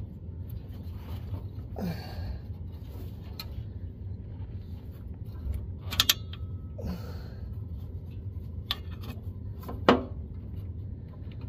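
Light clicks, knocks and rubbing from parts and tools being handled, over a steady low hum, with the sharpest clicks about six and ten seconds in.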